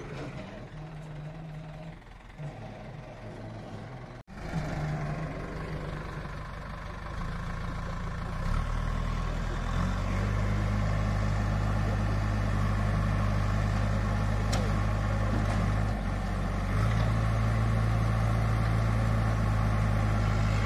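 JCB backhoe loader's diesel engine running, then coming under heavier load about eight to ten seconds in with a louder, steady low drone as its backhoe arm pushes a stuck, sugarcane-laden tractor trailer out of a rut.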